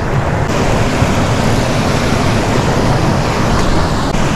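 Steady rushing of a mountain stream's whitewater rapids.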